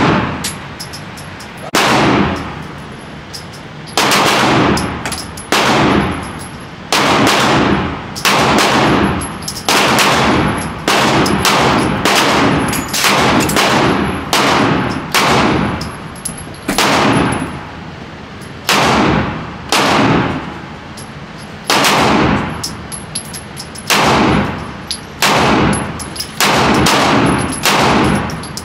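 Firearm shots at a shooting range, about two dozen single shots at uneven intervals of roughly a second, each with a short echoing tail.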